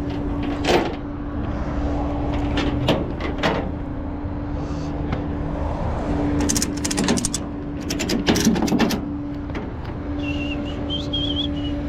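Flatbed tow truck's winch running with a steady hum while it lowers a car down the bed, the hum pausing twice, with bursts of metallic rattling clanks in the middle and a high wavering squeal near the end.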